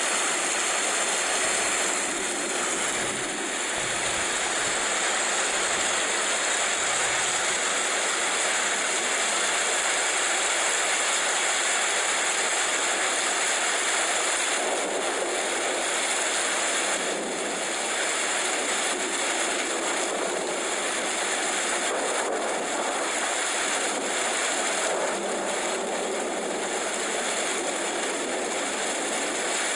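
Steady rain falling: an even hiss with no let-up.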